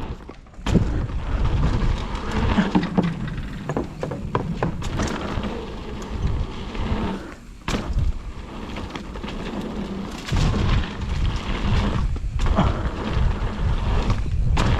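Mountain bike riding over a rough dirt trail: a steady rumble of tyre and wind noise, broken by many sharp knocks and rattles from the bike over bumps.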